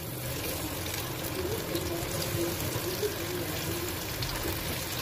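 Soya chaap pieces deep-frying in hot oil in a steel pan: a steady sizzling hiss.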